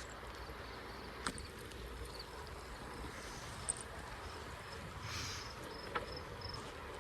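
Outdoor ambience: a steady background hiss with faint high chirps, a short rush of hiss about five seconds in, and a few sharp clicks.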